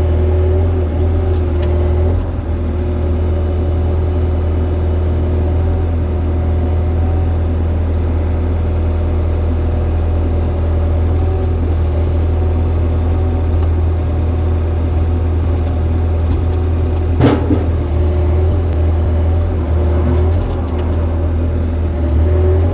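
Excavator's diesel engine running steadily under work, with a faint whine that wavers in pitch above the deep engine hum. A single sharp knock comes about three-quarters of the way through.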